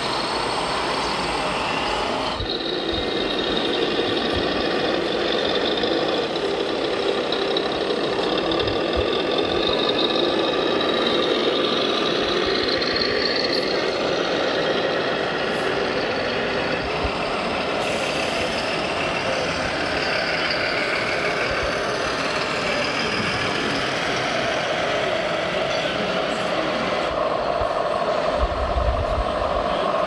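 Scale RC truck sound modules playing diesel lorry engine noise, with a reversing beeper, over the steady din of a busy show hall; a brief low rumble near the end.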